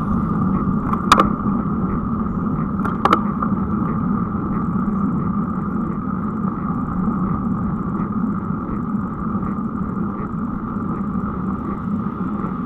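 Steady rolling noise of a bicycle on rough, cracked asphalt, picked up by a rear-facing camera mounted on the bike. Two sharp clicks come about one and three seconds in.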